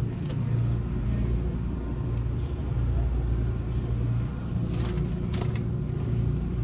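Steady low rumble with a faint hum, broken by two brief clicks about five seconds in.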